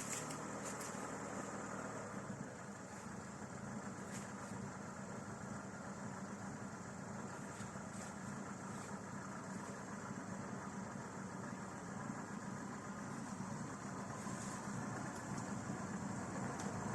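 Lada Niva's four-cylinder petrol engine idling steadily, growing slightly louder near the end.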